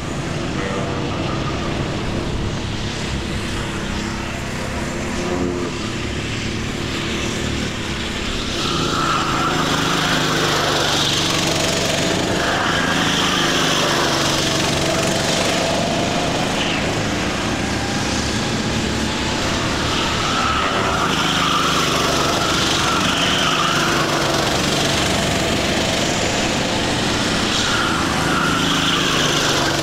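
Several Sodi racing karts' engines running on the circuit at once, their pitches rising and falling as they brake and accelerate through the corners. It gets louder from about nine seconds in as the karts come closer.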